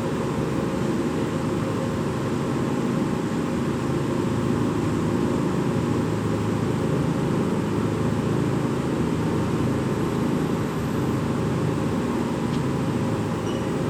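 A steady, unchanging drone of machine-like noise with a faint hum running through it.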